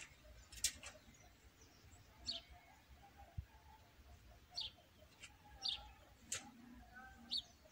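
Small birds chirping: short, sharp calls every second or so, some falling quickly in pitch.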